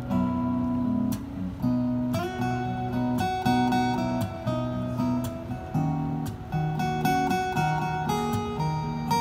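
Two acoustic guitars playing an instrumental piece together live, a picked melody over strummed chords and moving bass notes.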